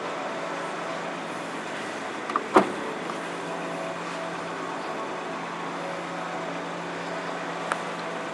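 BMW 2 Series Gran Coupé trunk lid unlatching: a light click, then a sharp clunk about two and a half seconds in as the latch releases. A faint click follows near the end. Under it all runs a steady low hum.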